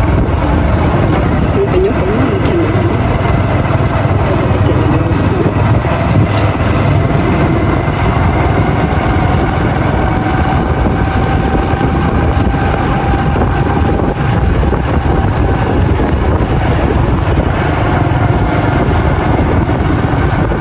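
Motorbike engine running steadily at cruising speed while riding, with a faint whine that drifts slowly in pitch, under heavy rushing wind noise.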